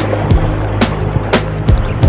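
Background music with a steady drum beat and a sustained bass line.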